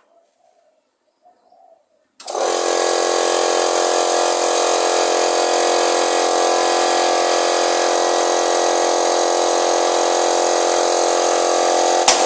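Electric power tool starts about two seconds in and runs steadily at high speed with a loud, even whine, likely cutting metal off an old lawn mower engine being stripped for scrap. A few sharp knocks come near the end.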